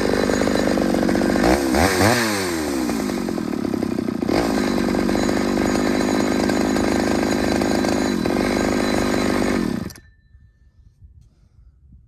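Ported Pioneer two-stroke chainsaw running at high revs, its pitch dipping and climbing about two seconds in, then holding steady before the sound cuts off suddenly near the end. The saw is running on a swapped-in carburetor, and the owner believes its muffler is holding back its performance.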